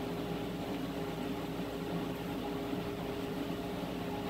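Steady low hum of a honeybee colony in an opened wooden hive.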